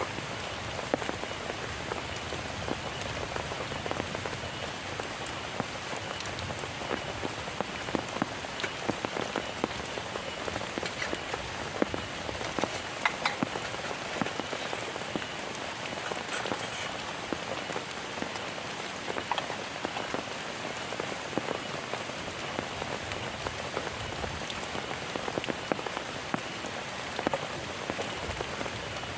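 Heavy rain falling steadily, with a dense patter of individual drops striking a surface.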